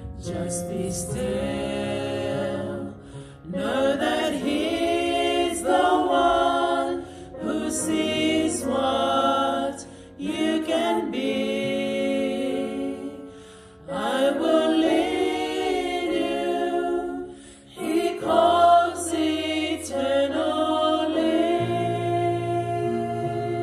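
A small group of women singing a song together, phrase after phrase with short breaths in between, accompanied by soft held keyboard notes.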